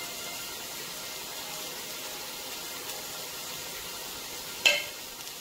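Lamb and vegetables sizzling steadily in a frying pan as they are stirred. Near the end there is a single sharp clack, the loudest sound.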